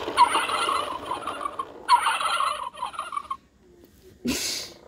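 Pull-cord 'The Farmer Says' farm-animal toy playing its recorded turkey gobble through its small speaker. The gobble ends about three seconds in, followed by a brief handling noise.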